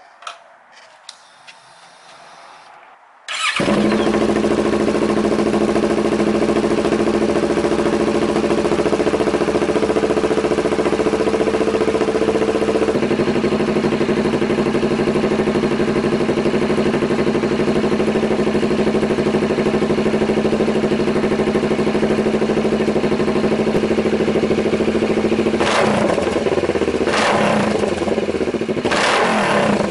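Kawasaki Vulcan S 650's parallel-twin engine breathing through a new Danmoto Highwayman aftermarket full exhaust, started for the first time: it catches about three seconds in and runs at a loud, steady idle. The idle settles a little lower about a third of the way through, and the throttle is blipped three times near the end.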